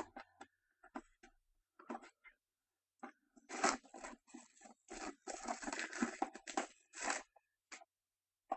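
Plastic wrapping on a box of trading cards being torn open and crinkled: a few short rustles and clicks, then several seconds of steady crinkling and tearing from a little after the start to near the end.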